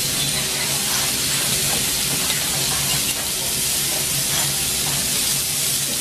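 Kobe beef cubes sizzling on a hot teppanyaki steel griddle, a steady hiss, over a faint steady low hum.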